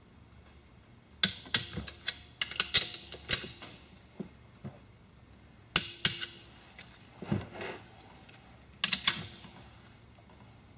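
Sharp metallic clicks and clinks in four short clusters from a wrench and socket on the Aerovee engine's crankcase nuts, as they are checked at 25 foot-pounds of torque.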